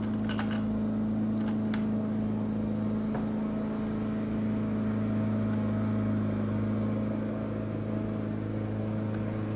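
A steady low mechanical hum, like a running motor, throughout. Over it come a few light clicks, a little under a second in and around two seconds in, from a screwdriver and small machine screws and nuts being worked on a metal hinge on a plastic bucket lid.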